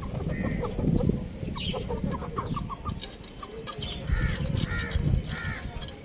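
Chickens clucking: a run of quick soft clucks in the middle, then three short arched calls about half a second apart near the end.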